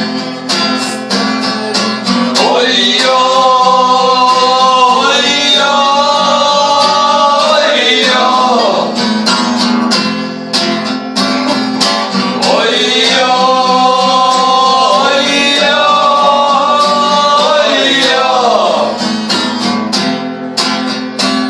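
Music between verses: acoustic guitar strumming under a lead melody that plays two long phrases of held notes with slides between them.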